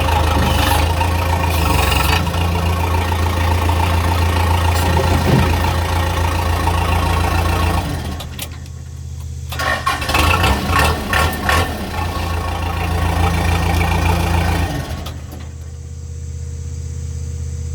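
Backhoe engine running steadily. It dips about eight seconds in, goes uneven and choppy for a couple of seconds, runs steadily again, then drops away about fifteen seconds in, leaving a fainter steady hum.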